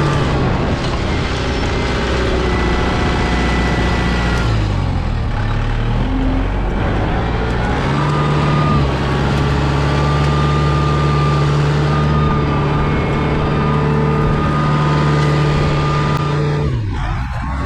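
New Holland mini excavator's diesel engine running while it digs out a ditch, with a thin high whine over it. The engine speed sags about four seconds in, picks back up about eight seconds in, and drops again near the end.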